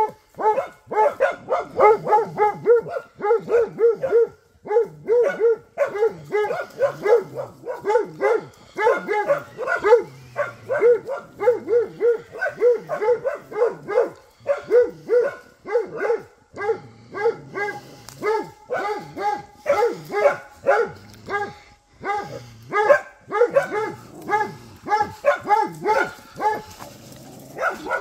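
Hunting dog baying at a wild boar: fast, continuous barking at about three barks a second, with a couple of brief breaks.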